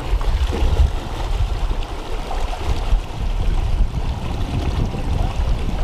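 River current rushing steadily around the feet of a wading angler, with a low, uneven rumble of wind buffeting the microphone.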